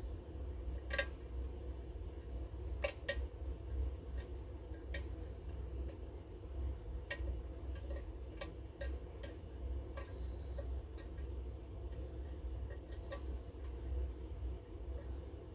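Small sharp metallic clicks at irregular intervals as a lock pick works the pin tumblers of a Goal GCY-79 lock during single-pin picking. A steady low hum runs underneath.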